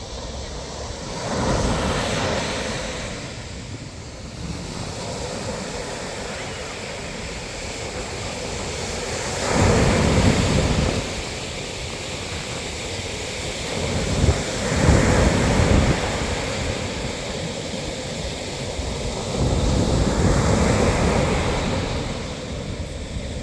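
Sea waves breaking and washing up the shore, with four bigger waves surging in a few seconds apart.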